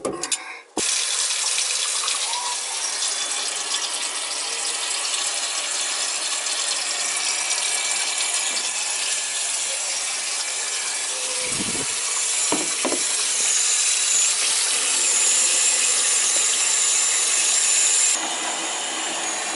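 Water running steadily from a kitchen tap and down through the sink drain, a loud even hiss with a few light knocks partway through. The sound changes abruptly near the end.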